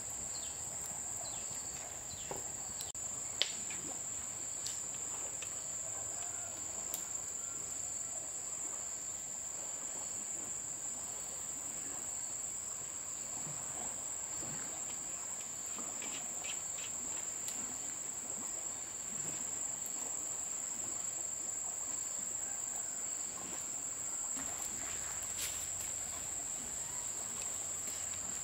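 Insects trilling steadily on one unbroken high pitch, with a sharp click about three seconds in and a few fainter clicks and knocks scattered through.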